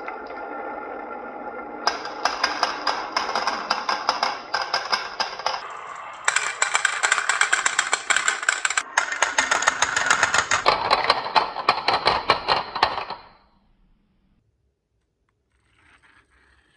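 Marbles rolling and clattering down a marble run track in a dense stream of rapid clicks, getting louder about six seconds in, then stopping abruptly about thirteen seconds in.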